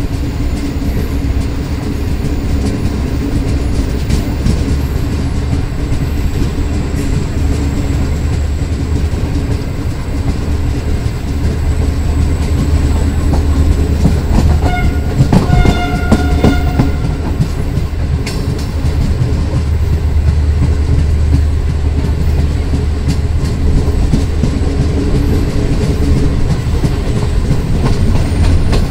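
Pakistan Railways passenger train running, heard from the coach door: a steady low rumble of wheels on rail with clickety-clack over the rail joints. The sound gets louder after about twelve seconds as the train gathers speed, and a brief high pitched tone sounds about halfway through.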